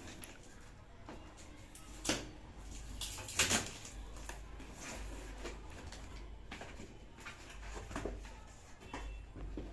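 Rustling and knocks from a laptop's packaging being handled and opened, the loudest rustle about three and a half seconds in.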